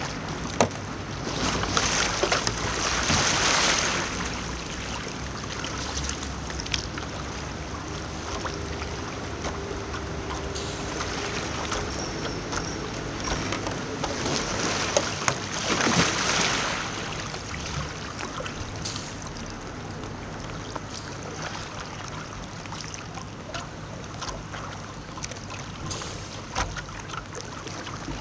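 Sea kayak capsizing and being rolled back upright: a rush of splashing water about two seconds in as the boat goes over, and another splash around the middle as the paddler rolls up. Steady water noise runs between them.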